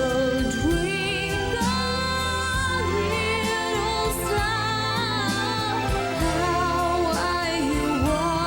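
Music: a song with a lead vocal holding long, wavering notes over band backing with a steady bass line.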